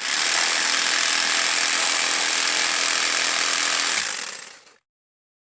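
Electric jigsaw running steadily for about four seconds, then shutting off and winding down to silence in under a second.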